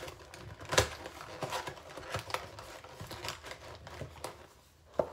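Paper packets of instant oatmeal rustling and crinkling as they are handled, with a few sharper taps.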